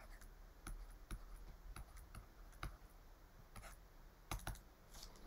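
Faint, irregular clicks and taps of a stylus on a pen tablet during handwriting.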